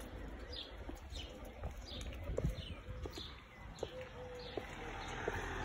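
A small songbird calling, a short falling chirp repeated steadily about every half second.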